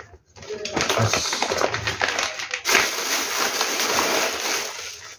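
Plastic food packaging crinkling and rustling continuously as it is handled and folded.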